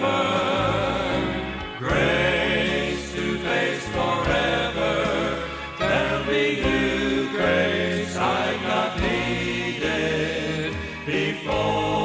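Gospel vocal quartet of men singing in harmony over instrumental accompaniment, the voices wavering on held notes.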